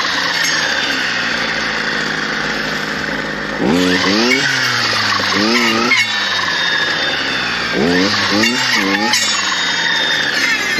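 Stihl clearing saw's two-stroke engine running hard while cutting brush, its pitch rising and dropping again and again as the throttle is worked. Fairly even for the first few seconds, then several quick revs up and down from about four seconds in.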